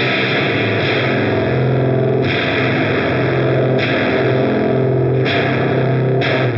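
Electric guitar played through the Audio Disruption Devices Transformations one-knob fuzz pedal: sustained, heavily distorted notes and chords, with bright, fizzy top end that comes in and drops out every second or two.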